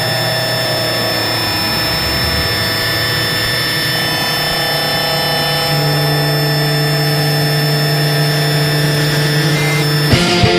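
A sustained wall of noise from a noise-rock recording, a steady drone of held tones over a hiss-like wash, with a louder low drone entering about six seconds in. Near the end the full band crashes in with drums and distorted guitar.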